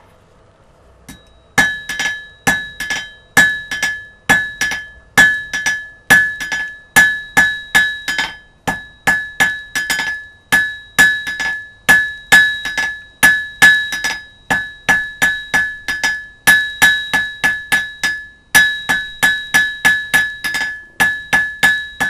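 Blacksmith's flat-faced hammer striking a hot iron rod on an anvil, about three blows a second in uneven groups, each blow ringing with the anvil's clear tone. The rod is being drawn out from round to square. The hammering starts about a second and a half in.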